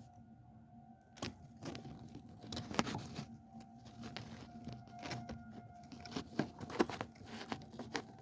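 Irregular clicks and knocks, starting about a second in, over a steady electrical hum.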